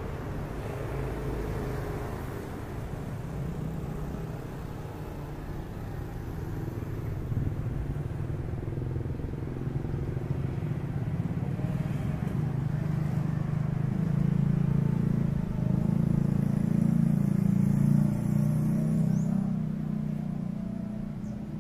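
A motor vehicle engine running nearby as a steady low rumble. It grows louder through the second half, peaks about three quarters of the way in, and then eases off.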